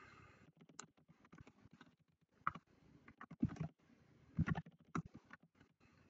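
Faint, scattered clicks of computer keys, typing in a short search query, in a few small clusters through the middle.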